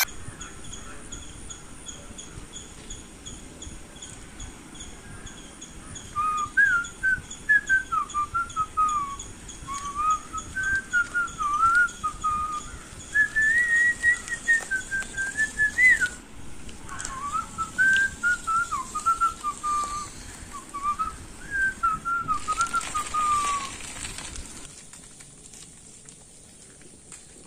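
A person whistling a wandering tune with sliding notes, starting about six seconds in and stopping a few seconds before the end, over a faint steady outdoor hiss.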